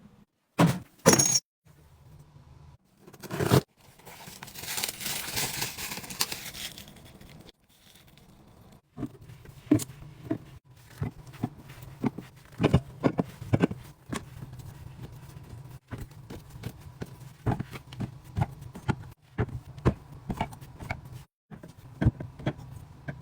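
Items being handled and set down in short edited clips: sharp taps and clicks throughout, with a few seconds of hissing rustle near the start.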